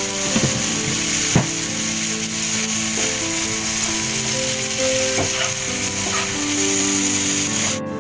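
Chopped bitter melon and onion sizzling as they stir-fry in a nonstick frying pan, with a metal spatula scraping and knocking against the pan now and then. The sizzle cuts off suddenly near the end.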